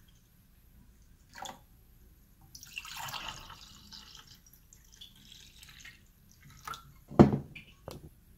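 Honey wine poured from a glass pitcher into a stemmed wine glass, splashing and dripping softly into it. Near the end comes a single louder knock, as the glass pitcher is set down on the tray.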